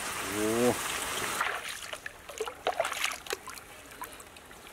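Water in a shallow stream trickling, with scattered small splashes and drips in the second half. A steady watery hiss cuts off abruptly about a second and a half in.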